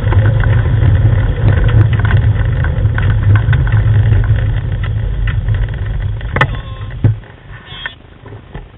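Dog-team training rig running over a gravel track: a loud steady low hum with many small clicks and rattles and one sharp knock, cutting off suddenly about seven seconds in as the team comes to a stop.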